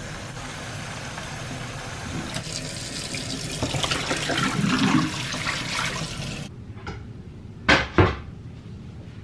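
Water running steadily, like a tap into a sink, cutting off suddenly about two-thirds of the way through; then two sharp knocks close together near the end.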